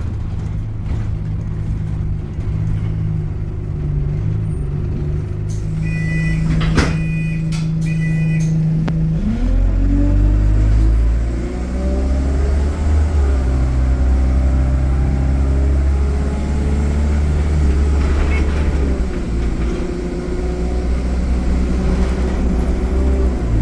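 Alexander Dennis Enviro400 double-decker bus heard from on board: the diesel engine idles, a two-note chime sounds twice about 6 to 8 seconds in, then about 9 seconds in the engine revs up as the bus pulls away, its pitch climbing and dropping back several times as the automatic gearbox changes up.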